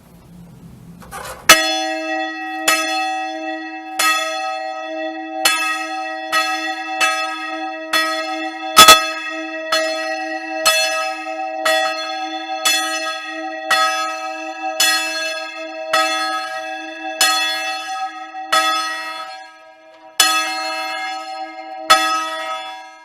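A church bell struck over and over, roughly once a second and not quite evenly, each stroke ringing on into the next. The strokes space out near the end and the ringing fades.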